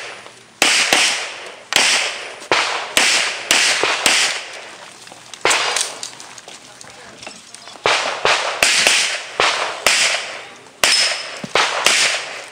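Pistol shots fired in quick succession, mostly in close pairs, each a sharp crack with a short echo. There is a lull of about two seconds near the middle, with one lone shot, before the pairs resume.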